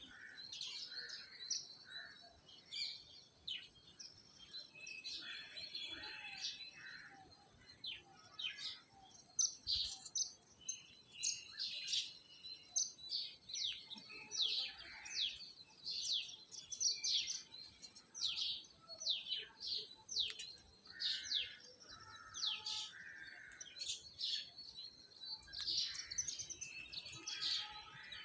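Parrots chirping: many short, high calls falling in pitch, coming in quick irregular succession, mixed with a few harsher, rougher calls.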